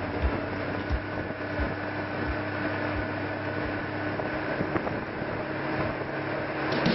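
Boat engine running steadily at cruising speed, a constant drone under the rush of wind and water. A few low thumps come in the first three seconds.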